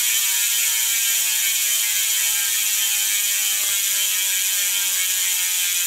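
Industry Nine Torch rear hub freewheeling as the wheel coasts: a continuous high buzz from its pawls ratcheting over the drive ring, which engages every 3 degrees. The pitch falls slowly as the wheel loses speed.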